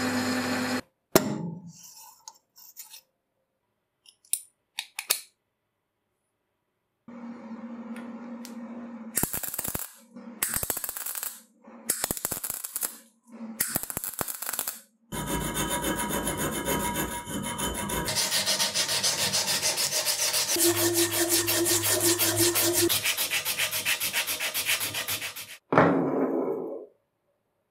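Workshop hand-work sounds in short takes cut one after another: a few clicks, then short bursts of scraping, then a long stretch of fast, even rubbing strokes, which is the loudest part.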